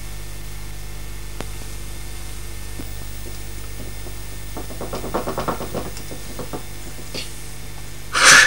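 Steady low hum and hiss of an old home video's sound track, with a short run of soft clicks from playing cards being handled about five seconds in. A brief sharp, loud burst comes just before the end.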